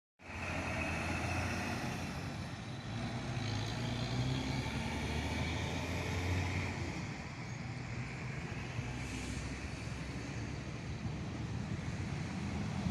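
Steady engine hum and road noise of a truck driving along a road, with no sharp braking or impact sound standing out.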